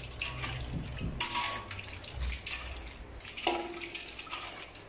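Metal ladle stirring clams in coconut milk in a steel wok: shells clatter and scrape against the metal while the liquid sloshes, in uneven strokes about a second apart.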